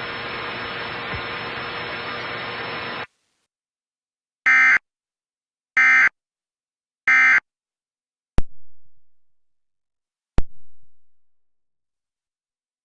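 Steady hiss for about three seconds, then three short buzzy electronic data bursts about 1.4 s apart: the Emergency Alert System's end-of-message digital code. Two sharp thumps follow, each dying away over about a second.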